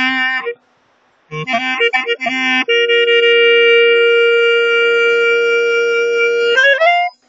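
Solo clarinet playing an Albanian kaba, a free, ornamented lament-style improvisation. A phrase breaks off about half a second in; after a short pause comes a run of quick ornamented notes, then one note held for about four seconds that ends in a rising slide and stops.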